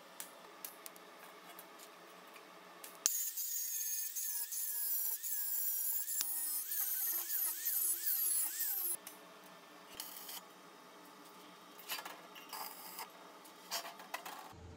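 Angle grinder with a flap disc grinding a welded seam on a steel box. It starts about three seconds in, runs for about six seconds with its whine wavering in pitch as it is pressed onto the metal, then stops. Light clicks and knocks of handling come before and after.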